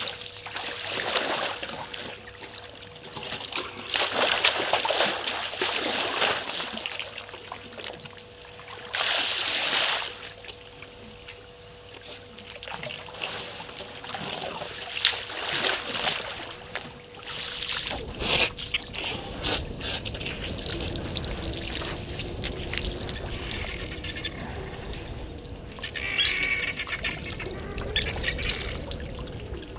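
African elephant browsing in dry bush: leaves rustle and twigs snap in irregular bursts, with one sharp crack just past the middle.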